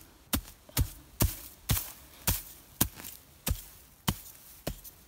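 Hatchet chopping into the ground to dig a fire-pit hole, striking steadily about twice a second.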